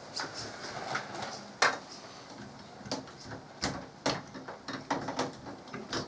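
Irregular clicks and light knocks of a chrome door handle and its metal fittings being handled and fitted against a PVCu door, the loudest about one and a half seconds in and again near the middle.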